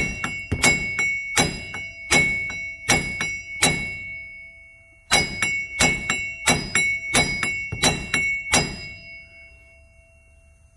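Dead-blow hammer striking a rusted-in hub-and-bearing assembly on a Silverado's steering knuckle, in two rapid runs of about two to three blows a second with a short pause between them. The metal rings on between the hits. The hub is seized in the knuckle and does not move under the blows.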